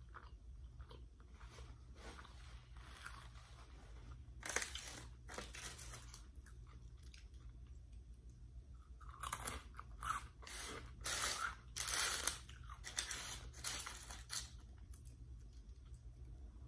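Close-up mouth sounds of eating: Flamin' Hot Cheetos being bitten and chewed. A few crisp crunches come about four to five seconds in, and a dense run of crunching follows from about nine to fourteen seconds in, with softer chewing in between.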